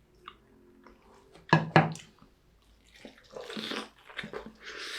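Close-miked wet chewing and lip-smacking of someone eating chicken: small mouth clicks, two loud smacks about a second and a half in, then squelchy chewing from about three seconds in.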